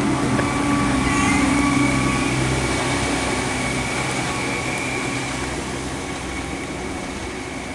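A train running with a steady hum and a thin whine, slowly fading.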